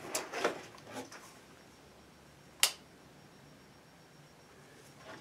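Faint rustling in the first second or so, then a single short, sharp crack about two and a half seconds in; otherwise quiet.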